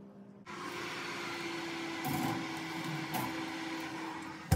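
Electric fan oven running open with a steady whir and a constant hum, then its door shuts with a sharp clunk near the end.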